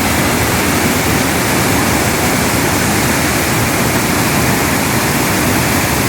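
Waterfall crashing steadily: a loud, even rush of falling water.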